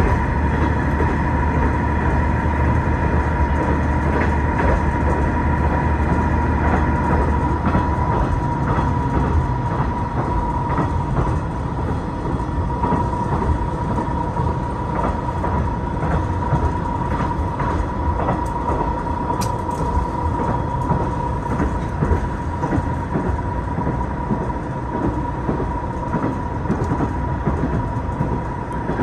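Running noise heard from inside a diesel railcar travelling at speed: a steady rumble with a constant whine and wheels clicking over rail joints. The low engine sound eases off about eight seconds in.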